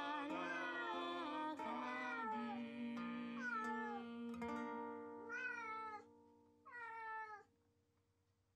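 Recorded song with plucked strings playing back in the room, fading out about six seconds in, while a cat meows over it; two more drawn-out meows come around five and seven seconds in. It is the cat's lonely crying at being left home alone.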